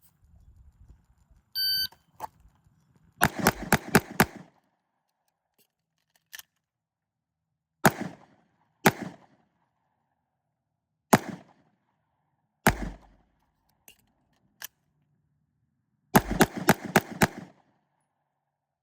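A shot-timer beep, then 14 pistol shots: a rapid string of five, a pause for a reload, two freehand shots about a second apart, two strong-hand-only shots about a second and a half apart, another reload pause, and a final rapid string of five.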